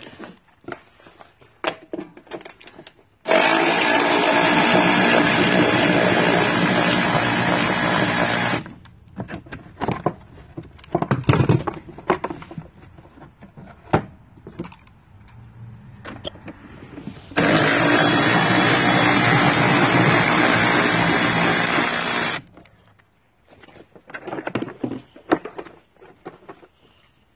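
Milwaukee M12 FUEL brushless 3/8 in. cordless ratchet motor running twice, each time for about five seconds, starting and stopping abruptly as it spins fasteners. Clicks and knocks from handling in between.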